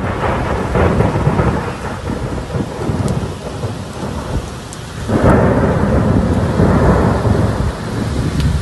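A heavy rainstorm: steady rain with a deep rumble underneath. The rumble grows louder about five seconds in.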